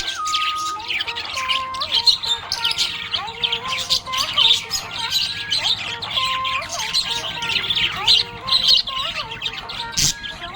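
Budgerigars chirping and chattering: a rapid, continuous stream of short high chirps, with longer held whistled notes that step up and down in pitch underneath.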